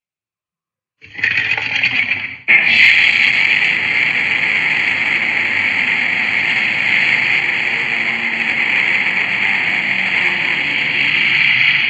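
Neoscream creature sound effect: a harsh, high-pitched screech. A short burst comes about a second in, then after a brief break a long, steady screech holds for about nine seconds.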